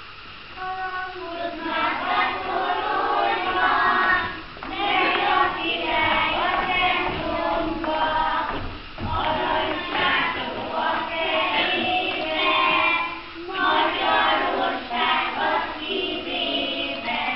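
A group of young children singing a song together, phrase after phrase with short breaks between.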